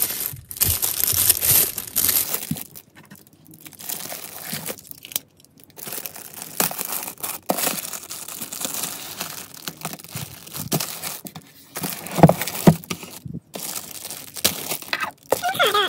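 Clear plastic shrink wrap being torn and peeled off a cardboard gift box, crinkling and crackling irregularly, with a few louder sharp snaps about twelve seconds in.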